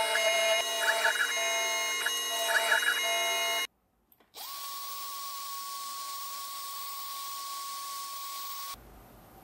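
Small desktop CNC mill's spindle whining as the drill bit plunges into a wooden plate, one plunge about every two seconds. After a short break, a steady single-pitched whine with hiss follows for about four seconds: a vacuum nozzle sucking the wood chips off the workpiece. It drops off near the end.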